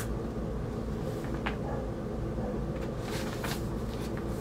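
Brief rustles of large glossy magazine paper being handled and turned, a few short scrapes, over a steady low hum of room noise.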